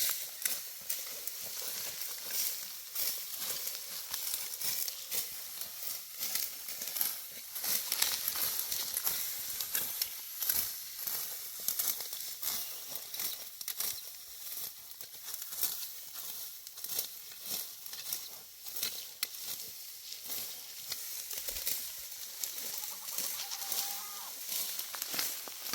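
Dense, irregular crackling and rustling of dry wheat stalks being cut by hand with a sickle. A short animal call comes in near the end.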